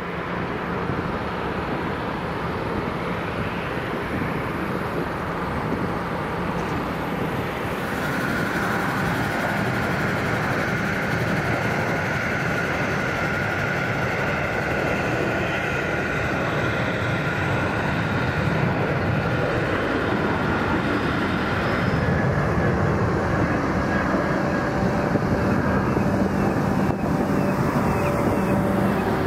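Jet airliner engines running at low taxi power, most likely the Boeing 737-800's turbofans: a steady rushing rumble. A high whine comes in about 8 seconds in, and the sound changes character near 22 seconds.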